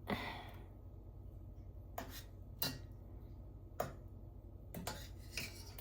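A few light clinks and knocks of kitchen utensils against a metal potato ricer as boiled potatoes are loaded into it, about five separate taps spaced out over a faint background hum.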